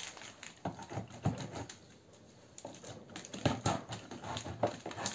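A flat metal scraper scraping old wax off a wooden beehive frame in short, uneven strokes, the frame's first mechanical cleaning before it is disinfected. The strokes pause briefly about two seconds in, then come again in a quicker run.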